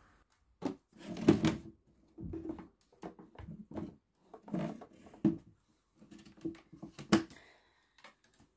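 Handling noise from a laptop being lifted and turned over: a series of short knocks and clunks with rustling between them, the sharpest about seven seconds in.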